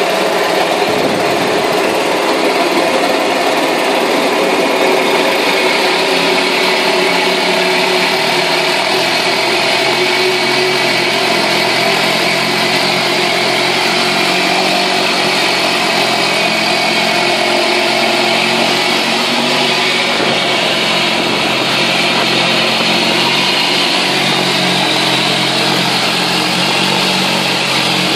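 Mariner 2 hp single-cylinder two-stroke outboard motor running steadily just after starting, its propeller churning water in a test tank.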